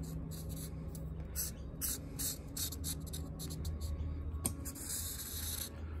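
Felt-tip permanent marker scratching across the steel face of an anvil in short, uneven strokes, colouring in the high spots that are to be ground off. A low steady hum runs underneath.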